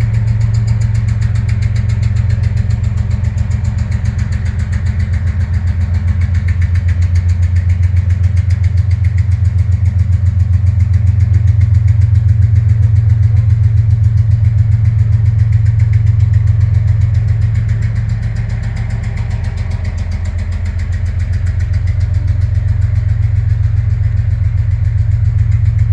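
CSX diesel locomotive engine running loud with a rapid, even knocking pulse over a deep drone, which the owner of the video takes for a rod knock. It sounds bad. The sound eases briefly about eighteen seconds in, then comes back up.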